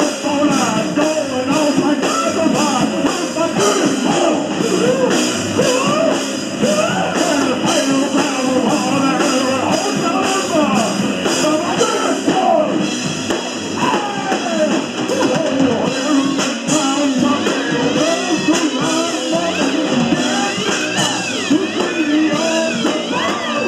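Live rock band playing loudly and without a break, with drum kit and electric guitar.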